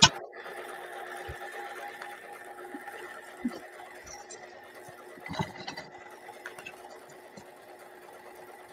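Electric sewing machine running steadily, stitching the seam of a vinyl zipper case, with a sharp click at the very start and a couple of soft knocks about three and a half and five and a half seconds in.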